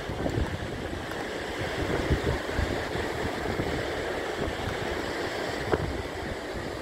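Wind buffeting the microphone in gusts, a steady rushing noise with irregular low rumbling.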